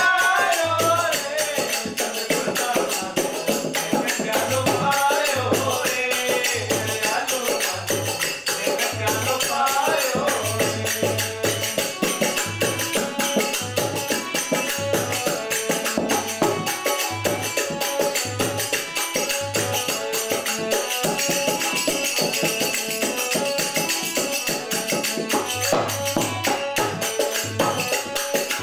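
Devotional bhajan played on harmonium, dholak drum and small hand cymbals (manjira), with the cymbals jingling steadily and the drum keeping a regular beat. Men sing for about the first ten seconds, then the voices drop out, leaving the harmonium melody over drum and cymbals.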